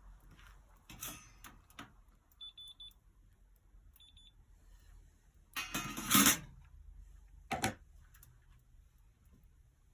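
Two short high electronic beeps from a handheld device, among knocks and rustles of handling; the loudest sound is a noisy burst about six seconds in.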